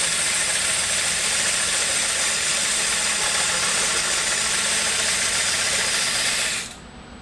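Lathe tool cutting fine shavings from a spinning wooden stave drum shell: a steady hissing scrape that stops abruptly near the end, leaving only the low hum of the running lathe.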